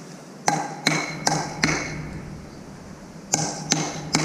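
Metal object being knocked repeatedly, each hit a sharp clank with a short metallic ring: four quick strikes about half a second in, then three more near the end.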